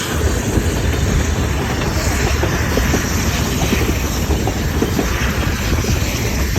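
Train running on the rails: a steady rumble and rushing noise with faint, irregular clicks from the wheels.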